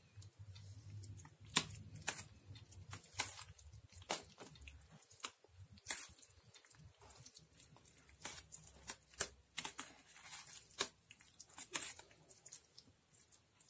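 A metal spoon spreading mayonnaise over chopped boiled egg in a steel salad ring, making soft, irregular scrapes and clicks.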